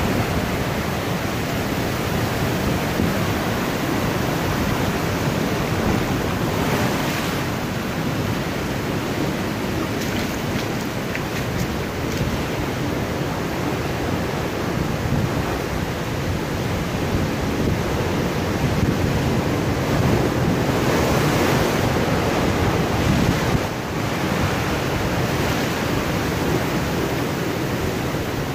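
Ocean surf washing and foaming over a flat rock shelf between boulders: a steady rush of water that swells louder now and then as waves surge in.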